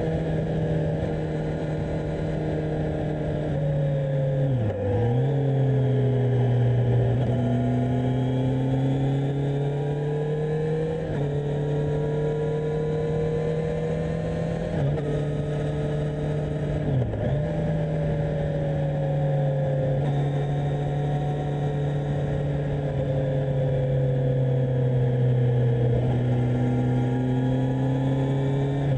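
Kawasaki Z1000SX's inline-four engine running at steady revs under way, its pitch drifting slowly. Twice, about five seconds in and again around seventeen seconds, the revs dip sharply for a moment and recover at once.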